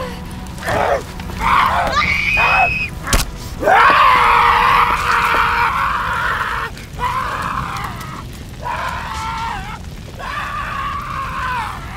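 A young woman screaming in long, wavering cries, the longest held about three seconds, with a sharp single strike about three seconds in.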